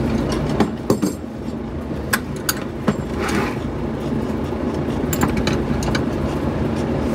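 Metal hand tools clinking and rattling in scattered sharp clinks as a wrench is sought from a wrench set, over a steady low mechanical hum.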